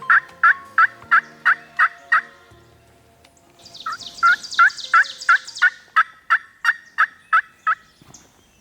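Turkey yelps: two runs of short, evenly paced yelps, about three a second, each note dropping in pitch. There is a pause of about two seconds between the runs. Faint background music plays under the first run.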